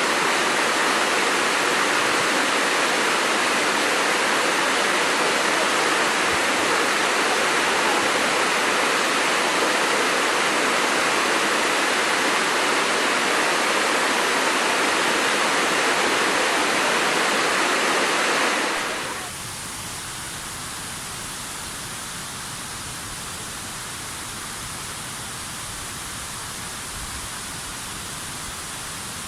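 Waterfall water rushing in a steady, even roar of noise. About two-thirds of the way in it cuts suddenly to a quieter, deeper-sounding rush of water.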